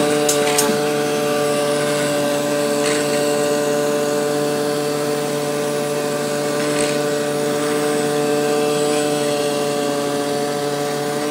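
Rubber-cutting machine for die-making running with a steady, even hum made of several tones, with a few faint ticks.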